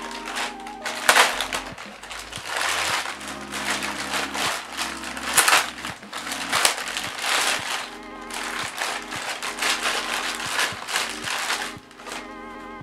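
Clear plastic packaging bag crinkling and rustling in irregular loud bursts as it is pulled open and worked off a monitor's stand parts by hand.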